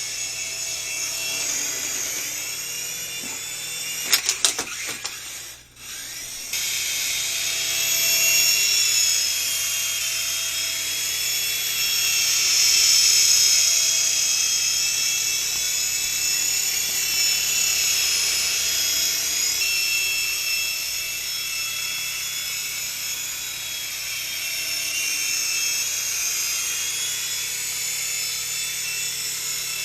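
Syma S5 mini RC helicopter in flight: its small electric motors and rotors whine at a high pitch that drifts up and down as the throttle changes. About four seconds in there are a few sharp clicks, and the sound briefly drops near six seconds before the whine resumes.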